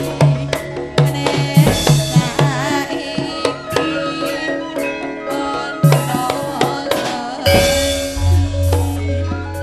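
Javanese gamelan ensemble playing, with bonang kettle-gong notes and drum beats. A deep, long low note comes in about eight seconds in.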